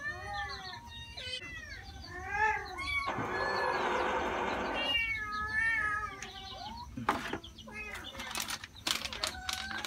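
Several cats meowing over and over, many short overlapping calls, begging for food as treats are put out. About three seconds in, a rough noisy sound lasts about two seconds, and near the end plastic treat packets crinkle and click as they are handled.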